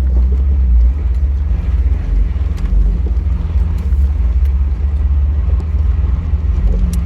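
Jeep TJ driving a rough dirt trail, heard from inside: a loud, steady low rumble of engine and tyres with scattered small knocks and rattles.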